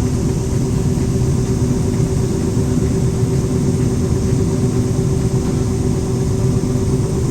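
Combine harvester running steadily under load in the soybean field, a loud even drone with a steady hum.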